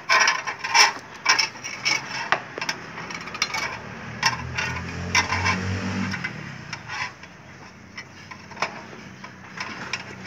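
Steel rebar being bent by hand with a rebar bending key: a run of sharp metal clicks, knocks and clatter of steel on steel, dense at first and thinning to scattered taps. A low hum rises and fades in the middle.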